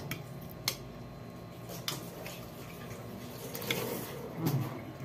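Spoon and fork clicking lightly against plates a few times during a meal.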